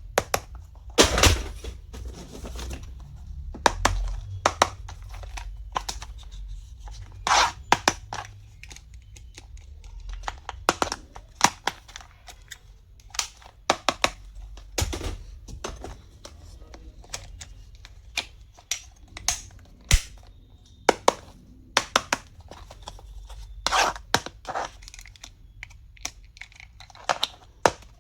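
Small stationery items and their plastic packaging being handled and unwrapped: irregular sharp clicks and taps, with packaging crinkling and tearing, loudest about a second in, about seven seconds in and near the end.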